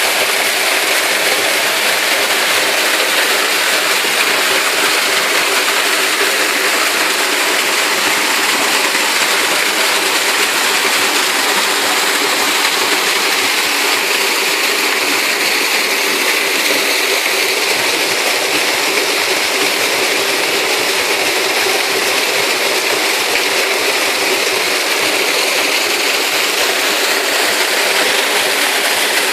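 Waterfall: the steady, loud rush of falling water, even and unbroken throughout.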